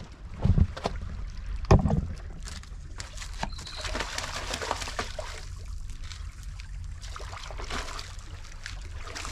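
A steady low rumble of wind on the microphone, with two dull knocks in the first two seconds, then a rustling hiss with many small clicks.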